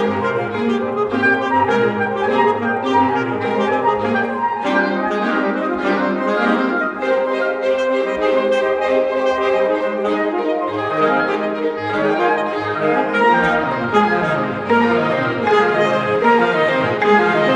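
Saxophone playing a solo line with a symphony orchestra, a marimba played with yarn mallets sounding rapid struck notes underneath.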